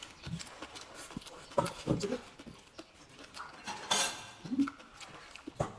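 Eating sounds: chopsticks clicking against a bowl and mouth sounds of chewing, with one louder noisy moment about four seconds in.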